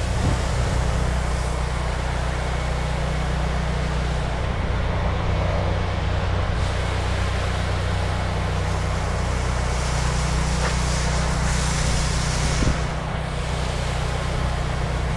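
An engine running steadily at constant speed, with a steady hiss over it and a brief knock about two-thirds of the way through.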